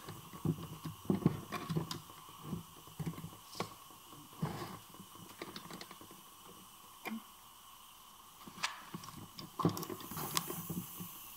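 Scattered light metallic clicks and knocks as the gear shafts, gears and hand tools of an opened Peugeot–Citroën manual gearbox are handled, with a faint steady hum behind.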